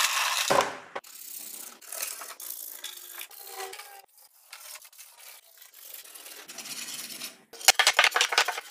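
Hardwood boards being handled on a workbench. A hand rubs and scrapes across the walnut boards' surface, then near the end comes a quick run of sharp wooden knocks as boards are set down against one another.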